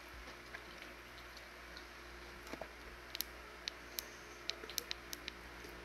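A person drinking from a glass mug, swallowing quietly: a run of faint, sharp clicks starts about three seconds in, over a low steady hum.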